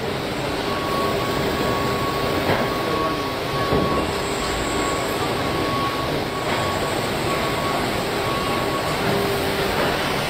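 Steady noise of car-body-shop machinery on a production line, with a constant hum and a higher tone that pulses on and off through most of it, and a few faint knocks.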